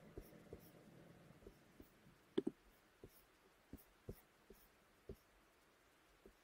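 Near silence with about a dozen faint, light clicks and taps from working a computer while a web page is scrolled, one of them sharper a little over two seconds in.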